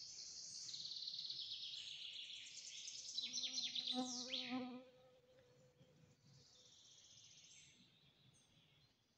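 Songbirds singing: high trills and quick descending phrases, loudest in the first half. For about a second and a half near the middle, a low buzzing tone sounds under the song.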